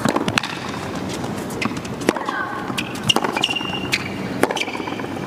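Tennis rally on a hard court: sharp strikes of the ball on the rackets, roughly one a second, with ball bounces in between, over the murmur of the arena crowd.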